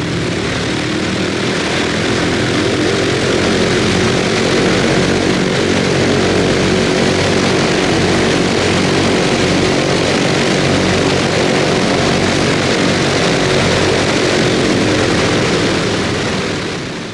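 Avro Lancaster NX611's four Rolls-Royce Merlin piston engines running steadily as the bomber taxis toward the camera, with a dense, layered drone; the sound fades out near the end.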